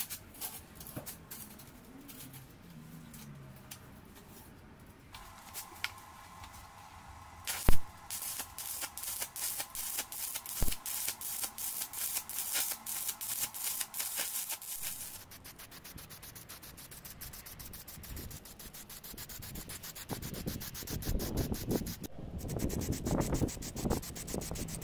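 Electric arc welding on steel sheet and tube: a dense, even crackle with a steady tone underneath, from about five seconds in to about fifteen, broken by one sharp metallic knock. Near the end, an aerosol spray can is shaken, its mixing ball rattling in quick strokes.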